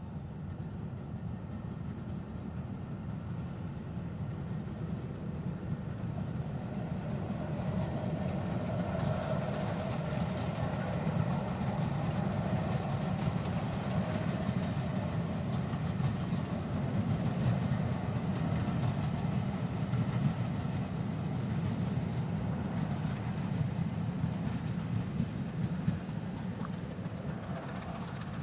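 Heritage diesel locomotive working past with its train: a steady low engine rumble that builds over the first several seconds, is loudest through the middle, and eases off near the end.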